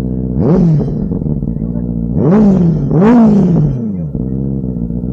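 Benelli TNT 600i's inline-four engine idling and revved three times, each rev rising in pitch and dropping back to idle.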